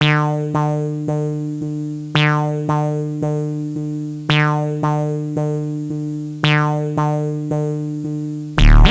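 Music: a keyboard synthesizer playing sustained chords struck about twice a second, with a fresh chord every couple of seconds. A louder electronic beat with deep bass and drums comes in near the end.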